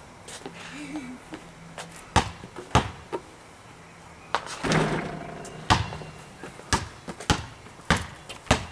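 Basketball bouncing on paving stones, single bounces roughly a second apart, with a louder, longer clatter about four and a half seconds in as a shot hits the hoop.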